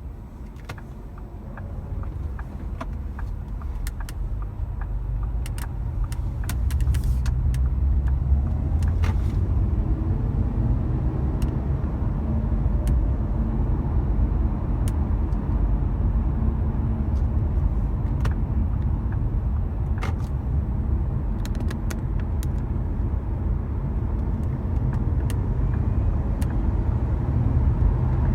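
Ford Mondeo EcoBoost turbocharged petrol engine pulling under acceleration, with steady engine and road rumble building over the first several seconds. A faint whistle rises and falls with the revs at times; it is the whistle that appears when the car accelerates.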